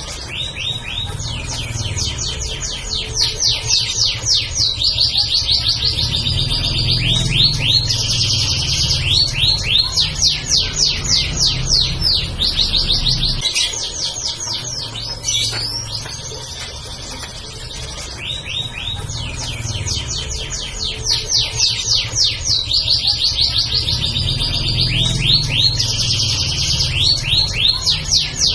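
Domestic canary singing in full song: long, fast trills and rolls of rapidly repeated notes, shifting from one roll to the next, over a low steady hum.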